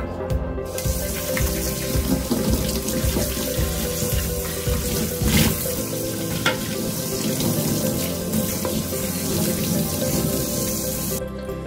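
Water running from a tap onto a stainless steel dish being rinsed under it, with a couple of short knocks as the dish is handled. The flow starts about a second in and shuts off shortly before the end.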